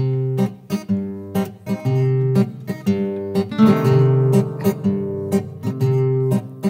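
Acoustic guitars playing a song's instrumental introduction, plucked and strummed chords that start abruptly, with no voice yet.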